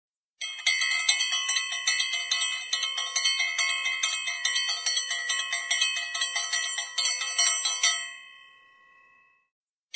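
A metal bell rung rapidly and continuously, about four to five strikes a second, then stopping about eight seconds in and ringing out for a second or so.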